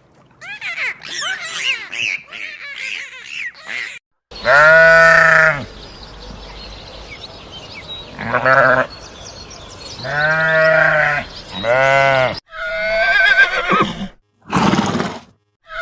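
A farm animal gives four long, pitched bleating calls, one after another, after a few seconds of many short, high calls that glide up and down. Near the end a horse whinnies.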